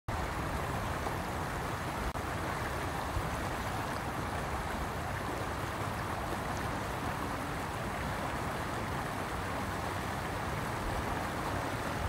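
River water running over a shallow, rocky riffle: a steady rush of water.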